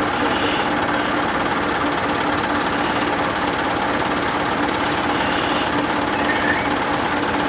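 Medium bus engine idling steadily.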